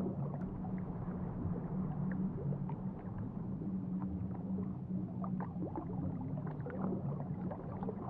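Underwater ambience: a steady low rumble with faint scattered crackles and clicks.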